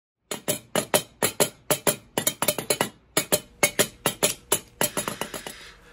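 A rapid run of hard, sharp knocks, many in close pairs, coming faster in the second half.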